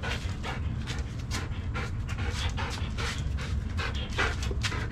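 Dog panting rapidly, about four breaths a second, over a low steady rumble.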